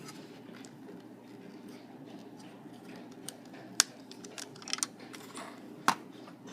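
Plastic clicks from the trigger mechanism of an Ausini building-block toy pistol being worked by hand. There are a handful of sharp clicks, the loudest about four seconds in and again near six seconds.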